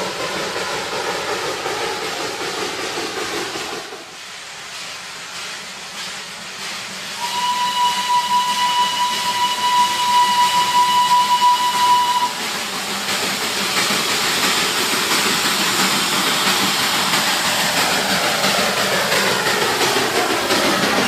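Darjeeling Himalayan Railway toy train running, its whistle blowing one steady high note for about five seconds in the middle, over a continuous loud hiss.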